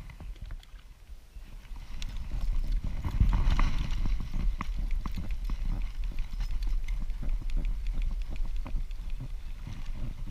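Spinning fishing reel cranked while fighting a hooked bass, a quick run of irregular clicking and ticking from about two seconds in, over a low rumble.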